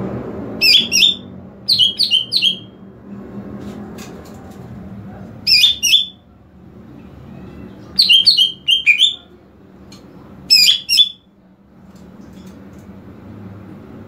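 Cucak ijo (green leafbird) calling in five short bursts of two to four sharp, quick high notes, spaced a few seconds apart. These are the calls used as a lure to set other leafbirds calling.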